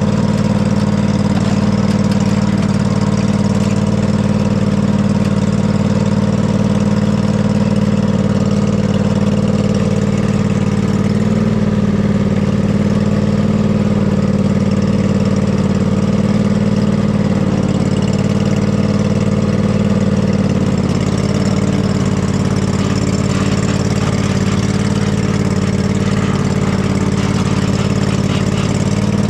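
Husqvarna riding mower engine running steadily, wavering briefly in pitch twice, about a third and two-thirds of the way through.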